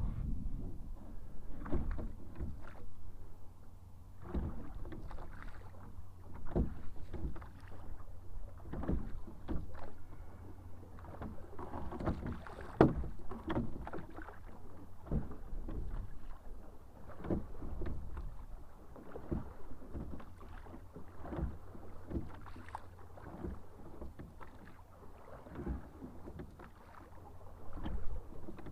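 A small boat moving through the water under hand power: water sloshing and lapping at the hull, with irregular knocks against the boat, one sharper than the rest about halfway through.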